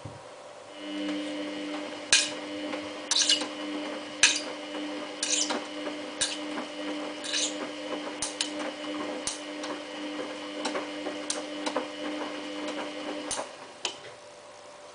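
Samsung WF8804RPA washing machine's drum motor running for a tumble during the prewash, a steady hum that starts about a second in and cuts off near the end. Irregular sharp clicks and knocks sound over it as the sleeping bag tumbles in the drum.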